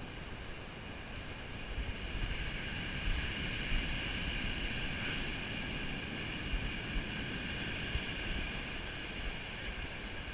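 Wind buffeting the microphone over surf washing on a shingle beach, a steady hiss that swells about four seconds in.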